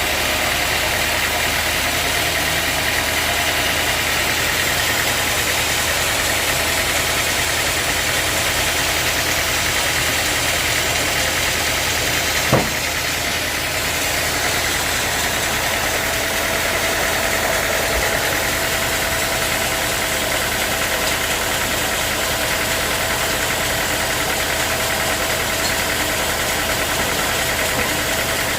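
Sawmill machinery running with a steady, even drone, and one sharp knock about halfway through.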